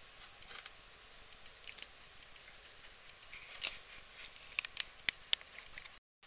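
Small metal nameplate badge being handled and pressed onto a speaker's cloth grille: a few light ticks and scratches, the sharpest about three and a half seconds in, then a quick run of clicks around the five-second mark. The sound cuts off abruptly near the end.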